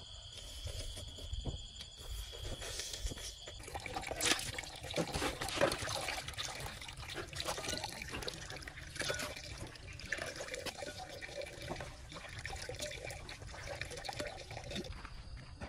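Water pouring into a plastic basin and splashing as live eels are washed and handled in it. A steady high tone runs through the first few seconds and stops before the splashing sets in.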